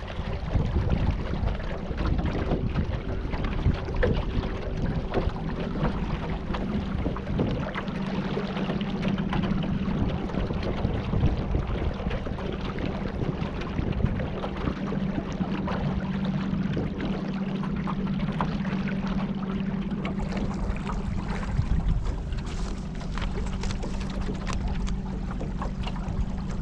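A boat motor runs at a steady drone under rough wind and water noise. The hum fades somewhat near the end.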